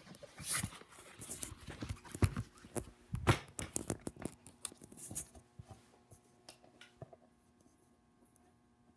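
Handling noise from a phone that is filming: irregular knocks, taps and scrapes as fingers fumble with it, loudest in the first half, with one sharp knock a little past three seconds, then settling to faint room tone.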